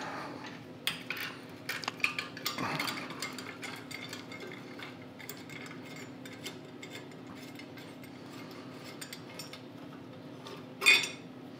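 Hand socket ratchet clicking in quick runs as a bolt is turned, with small metal clinks of tools. The clicks thin out later, and a single louder metallic knock comes near the end.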